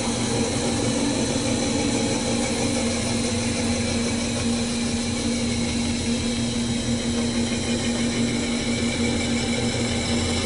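CNC metal spinning lathe running, its spindle turning a sheet-metal cone against a mandrel while the forming roller presses on it: a steady machine hum with a strong steady low tone.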